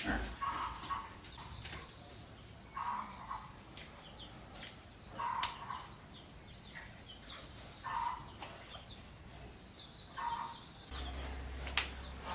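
Chickens clucking, one short call every two to three seconds, with faint high chirping from small birds or chicks in between. A low hum comes in near the end.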